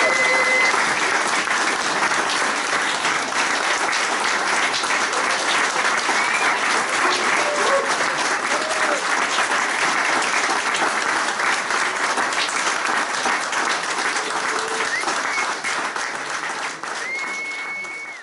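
A small audience applauding, with a few voices calling out over the clapping. The applause fades out near the end.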